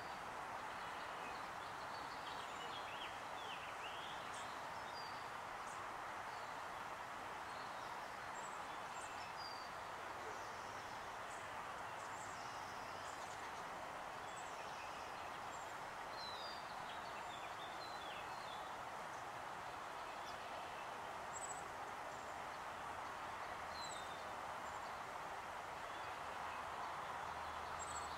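Open-country ambience: a steady background hiss with small birds chirping and twittering, scattered short high calls throughout. A low rumble comes in near the end.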